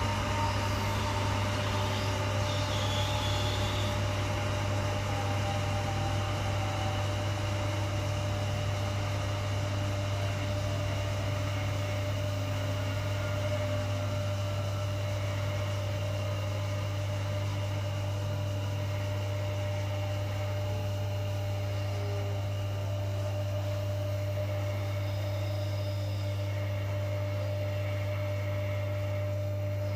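Primus RS16 front-loading washing machine standing with its drum still, giving off a steady, even electrical hum with a faint high whine above it.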